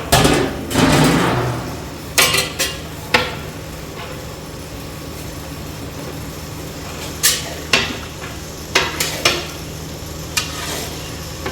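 A metal spoon or ladle stirring a large cooking pot of curry: a scraping stretch at the start, then a dozen or so short sharp knocks of metal on the pot, over a steady low hum.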